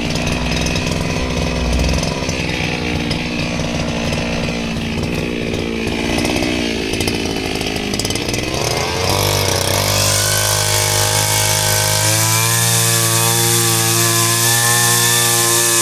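Small petrol engine running, its speed rising and falling unevenly, then climbing about nine seconds in and holding steady at a high speed, run at full throttle.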